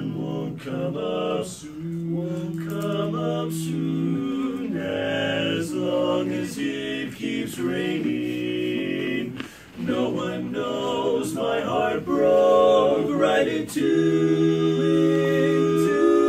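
Male barbershop quartet singing a cappella in close four-part harmony, with long held chords and a short break a little past halfway.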